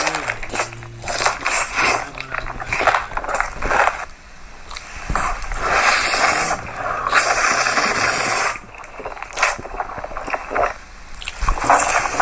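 Close-up eating sounds: food crunching, squishing and scraping in quick irregular strokes, thickest in a long patch about halfway through.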